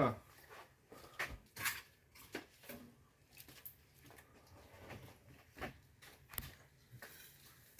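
Scattered light clicks and knocks of small hard objects being handled, about half a dozen in all, the most distinct at roughly one and a half seconds in, again just past five and a half seconds, and near six and a half seconds.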